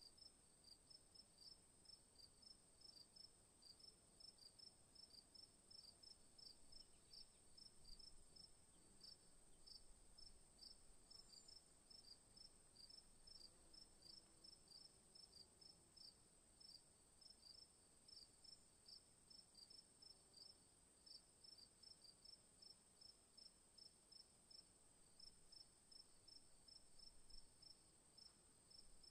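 Faint chirping of an insect: short high chirps repeating steadily about three times a second, over a steady high-pitched tone.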